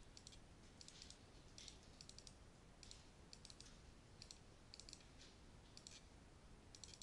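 Faint computer keyboard typing: short bursts of key clicks with brief gaps between them as text is entered field by field into a web form.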